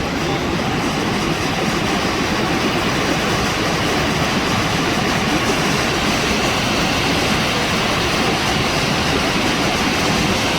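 Bharachukki Falls on the Kaveri river: the steady, loud rush of a large waterfall, a continuous wash of falling water without breaks.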